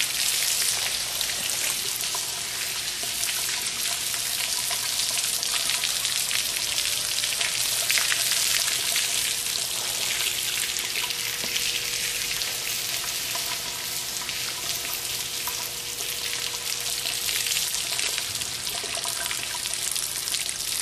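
A stream of water splashing and spattering onto the sealed aluminium case of a fanless waterproof mini PC and the wet surface around it. It makes a steady, even hiss with no pauses.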